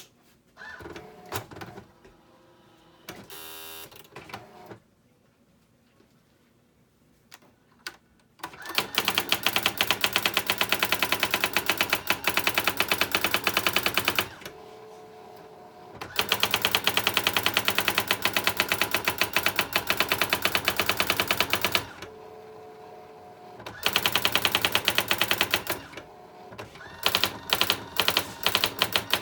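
Brother AX-350 electronic daisy-wheel typewriter printing. It starts with a few scattered clicks and a short whirr, then types in long runs of rapid, evenly spaced strikes. Each run is broken by a steady motor hum of a second or two as the carriage returns, and it ends with slower single strikes.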